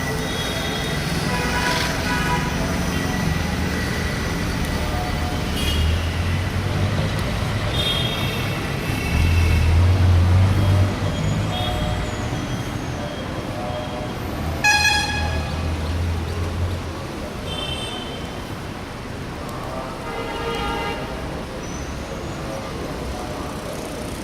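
Busy road traffic with engines running and vehicle horns honking about five times. One horn blast about fifteen seconds in is short and loud, and the low engine rumble is heaviest in the middle.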